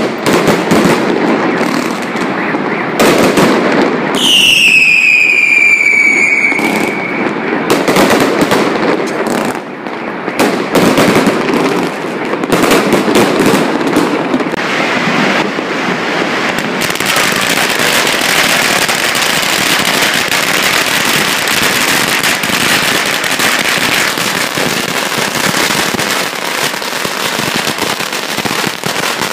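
Chinese New Year fireworks and firecrackers going off without a break: dense bangs and crackle. About four seconds in, a firework whistles for roughly three seconds, its pitch falling. From about halfway on, a long string of firecrackers crackles steadily.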